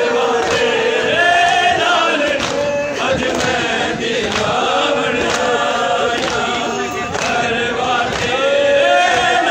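A crowd of voices chanting and singing together in a Muharram mourning chant, with long held and gliding notes.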